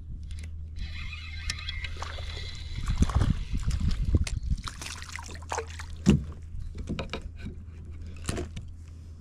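A hooked fish splashing and thrashing at the water's surface beside a kayak, loudest about three seconds in, while a spinning reel is wound in. A few sharp knocks follow later, and a steady low rumble runs underneath.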